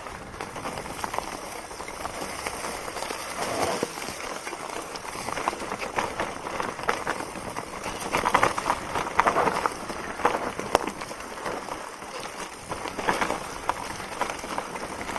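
Mountain bike rolling down a rocky, leaf-strewn trail: tyres crunching over stones and dry leaves, with a steady clatter of knocks and rattles from the bike. The clatter is busiest about halfway through.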